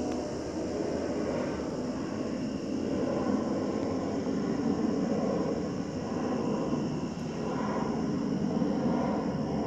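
Airplane passing overhead: a steady, distant engine rumble that swells and eases. Insects keep up a steady high trill behind it.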